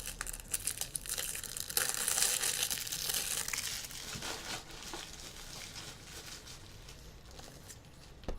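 Trading-card packaging crinkling and tearing as it is opened by hand, a dense run of small crackles that is busiest a couple of seconds in and then thins out.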